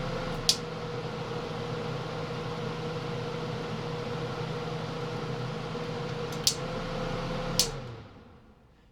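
1981 Kenmore 48-pint dehumidifier running in constant-fan mode, a steady fan hum with a held tone. Three sharp switch clicks, about half a second in, at about six and a half seconds and near the end; with the last click the unit shuts off and the fan winds down to quiet.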